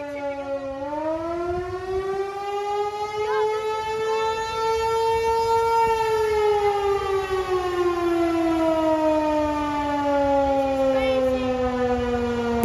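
A 508 outdoor tornado warning siren sounding: a steady tone with many overtones that climbs in pitch from about a second in, then slowly falls again over the rest.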